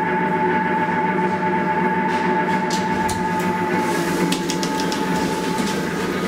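Deve/Schindler hydraulic elevator running: a steady mechanical hum with a constant high-pitched whine. Light clicks and rattles come in from about halfway through.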